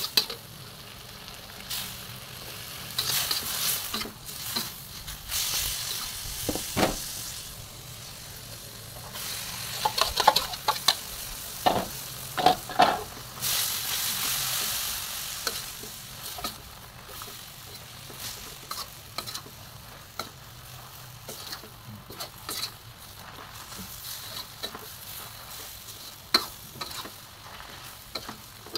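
Stir-fry sizzling in a wok, with a metal spatula scraping and knocking against the pan as the food is tossed. The sizzle grows louder for a few seconds about halfway through as the noodles go in and are turned over.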